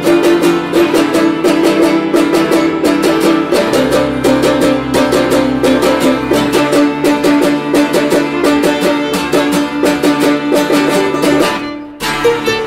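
Acoustic folk music: a plucked string instrument picked in a fast, even run of notes over a held low drone, which steps down to a lower note about four seconds in. The music dips briefly near the end, then comes straight back in.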